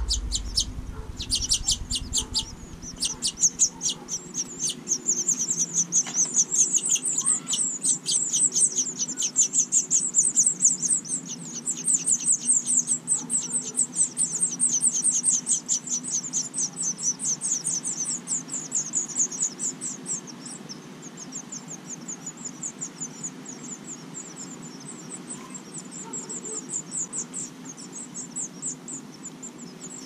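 House finch nestlings begging: a long rapid run of high, thin chirps while a parent feeds them, growing softer and sparser after about twenty seconds.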